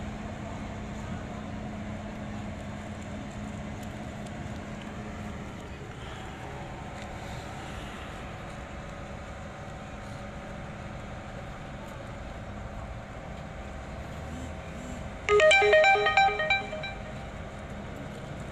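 A short electronic ringtone melody of stepped notes sounds for about a second and a half, about fifteen seconds in, over steady outdoor background noise.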